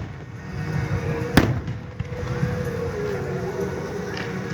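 Fireworks display: aerial shells bursting, with one sharp bang about a second and a half in and another right at the end, over a continuous low rumble.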